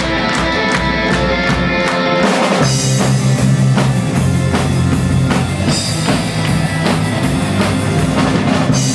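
Live rock praise band playing an instrumental passage: drum kit keeping a steady beat under electric guitar and bass, the full band coming in harder about two and a half seconds in.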